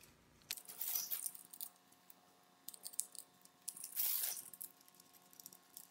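Spline tool's roller running along the screen frame's channel, pressing the spline and screen mesh in: faint, irregular crackling and clicking, with two louder scraping passes about half a second in and about four seconds in.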